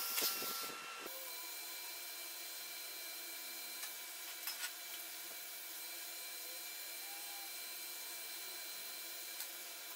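TIG welding arc on stainless steel: a steady hiss with a faint tonal buzz. It is louder in the first second, then settles to a quieter, even hiss, with a few light ticks about halfway.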